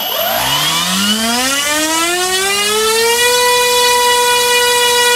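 NTM PropDrive 3842 1300kV brushless outrunner motor spinning a Master Airscrew 9.5x6 propeller on a 4S battery, throttled up from a standstill to full power on a thrust test: its whine rises in pitch over about three seconds, then holds steady at full throttle.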